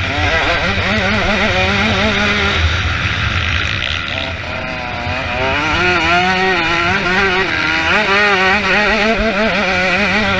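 Motocross motorcycle engine revving up and down again and again as the bike races, the pitch rising and dropping every second or so over a steady rumble.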